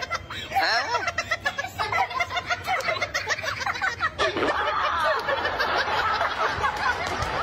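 Several people laughing, many short laughs overlapping one another.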